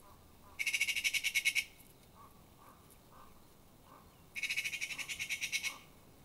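Eurasian magpie giving its harsh rattling chatter twice: two bursts of rapid chacking, about ten notes a second and each a second or so long, the first just after the start and the second about four seconds in.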